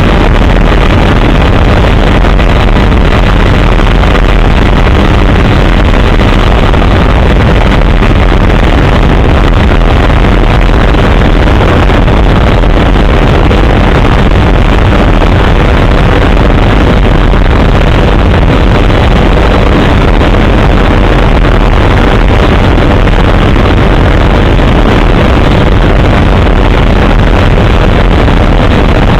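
Helicopter engine and rotor noise, loud and unbroken, with a steady drone of several tones throughout.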